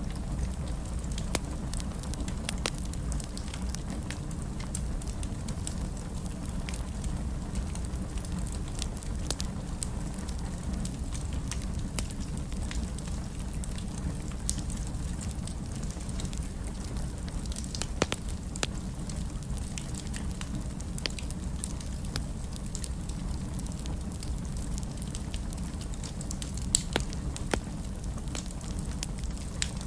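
Wood fire burning in a fireplace: a steady low rumble of the flames with scattered crackles and pops, a few louder snaps about 18 and 27 seconds in.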